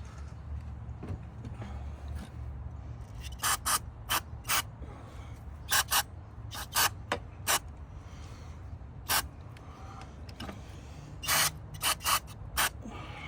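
Ratchet wrench clicking in short runs of strokes as a bolt is worked on the engine, with pauses between the runs.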